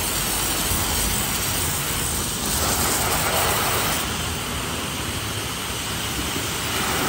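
Italian ceramic-plunger pressure-washer pump running under load, its gun firing a high-pressure water jet onto concrete: a steady hiss of spray over the machine's hum, swelling a little about three seconds in.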